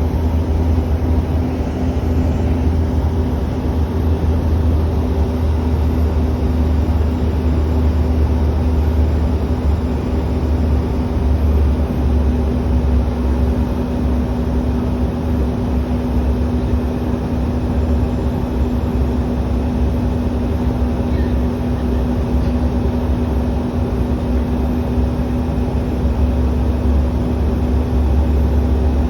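Bombardier CRJ200 regional jet with its GE CF34 turbofans running: an even low rumble with a steady hum, unchanging throughout.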